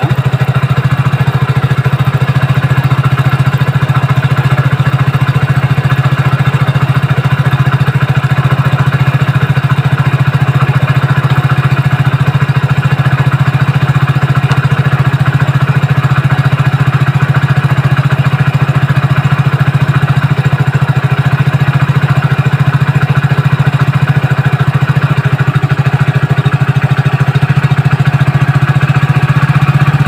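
Hero Splendor BS6 motorcycle's single-cylinder engine idling steadily with the bike on its centre stand, turning the rear wheel through the drive chain.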